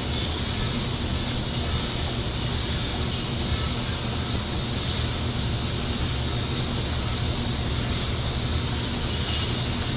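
Steady mechanical drone of dairy barn equipment: a constant low hum under an even high hiss, unchanging throughout.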